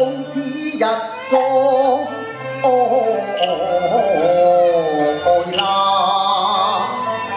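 Cantonese opera song sung by a male singer into a microphone, with a wavering, gliding melody over live instrumental accompaniment, and a sharp percussion click a few seconds in and again near the end.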